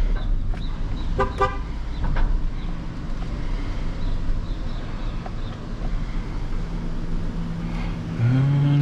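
Truck engine idling with a steady low rumble while it sits on a scrap-yard scale. A steady low horn-like hum comes in during the last couple of seconds and grows louder near the end.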